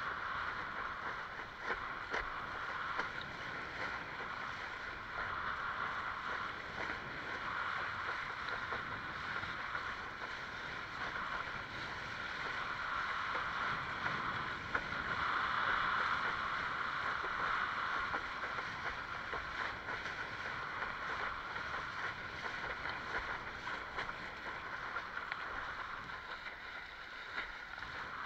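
Water rushing and splashing along a Fanatic Ultra Cat windsurf longboard's hull as it sails through chop: a steady rush that swells a little about halfway through.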